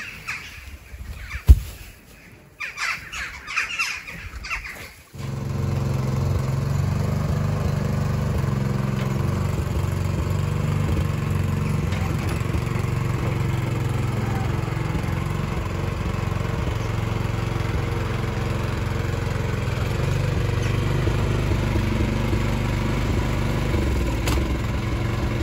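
Short bird calls and one sharp knock in the first few seconds. Then, about five seconds in, the 7-horsepower engine of a two-wheel walking tractor comes in suddenly and runs steadily at an even level.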